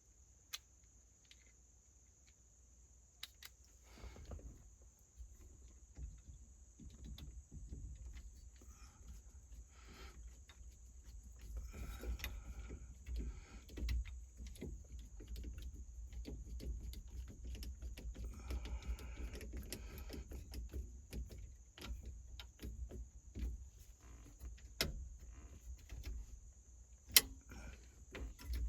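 Scattered light clicks, knocks and rattles of hands and small parts being worked at a truck's steering column, irregular rather than rhythmic, over a low rumble.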